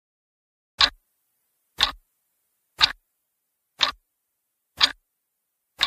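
Clock ticking sound effect: six sharp ticks, one a second.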